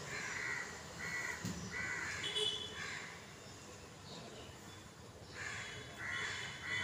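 Crow cawing repeatedly: a run of harsh caws in the first three seconds, a short lull, then more caws from about five seconds in.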